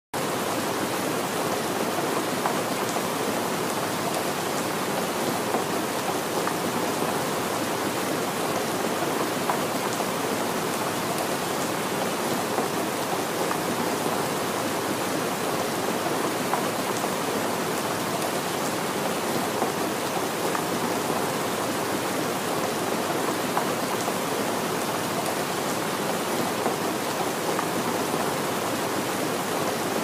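Steady rain falling: an even, unbroken hiss with scattered light taps of drops.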